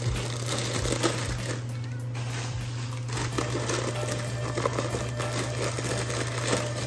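Foil snack bags crinkling and rustling with small irregular clicks as they are pushed into a snack vending machine's spiral coil, over a steady low hum.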